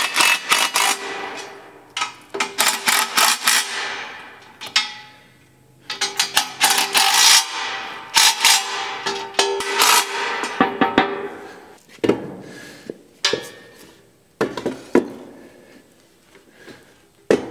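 Cordless impact driver hammering bolts into a steel stand in several short bursts of a second or two each, with background music underneath.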